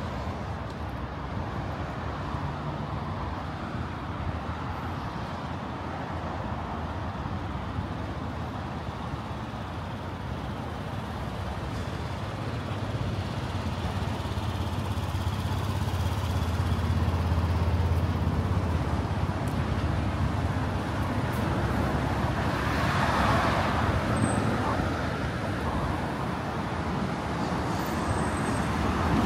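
Street traffic: motor vehicles passing. A low engine rumble grows louder through the middle, and a louder passing vehicle comes a little past two-thirds of the way through.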